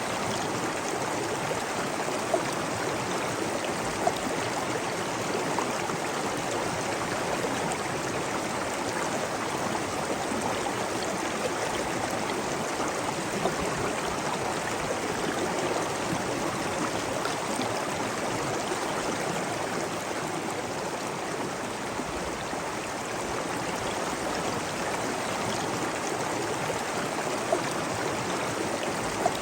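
Steady rushing water of a stream and waterfall, an even continuous wash of sound, with a few brief sharper spots standing out in it.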